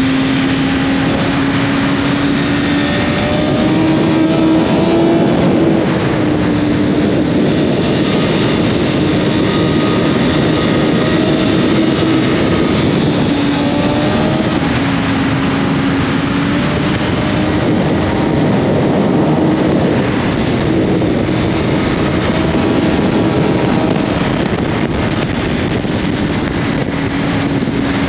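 BMW S1000RR inline-four engine running at high, fairly steady revs under constant wind rush, its pitch rising and easing a little with the throttle.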